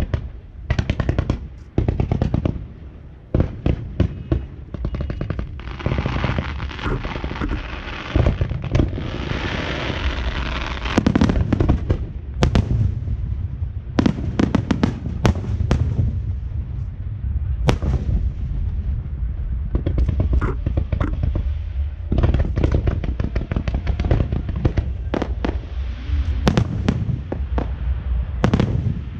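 Fireworks display going off: a rapid, irregular series of sharp bangs, with a stretch of dense crackling a few seconds in, over a steady low rumble.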